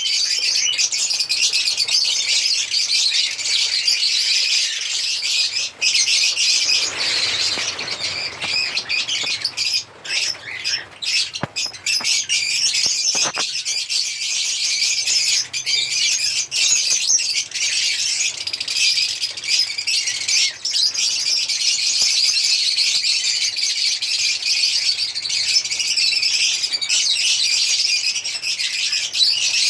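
Several African lovebirds chirping and chattering without pause, a dense high-pitched twittering with shrill squawks mixed in. A brief lower rushing noise comes about seven seconds in.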